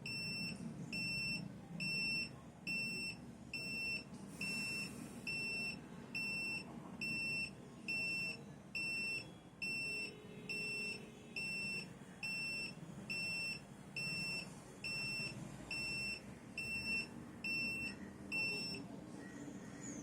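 Carbon monoxide meter alarm beeping: a high-pitched single-tone beep repeated evenly, about three every two seconds, over a faint low hum, stopping near the end. The alarm signals carbon monoxide above its alarm level from the smouldering cotton.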